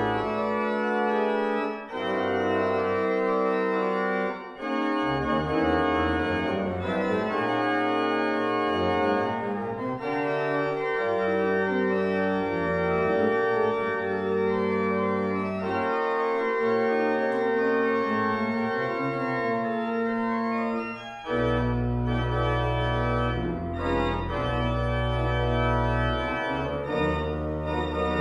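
Lewis pipe organ playing a fanfare in sustained full chords. After a brief break about three quarters of the way through, deep pedal bass notes come in strongly.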